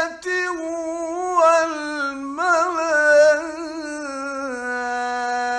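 A male Quran reciter's voice sings out a word of the verse in one long melodic phrase, in the ornamented mujawwad style. The pitch wavers and trills in quick ornaments around the middle, then settles on a steady lower held note.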